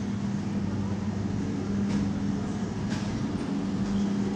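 Steady low machine hum, a drone with a deeper undertone beneath it, with a couple of faint ticks about two and three seconds in.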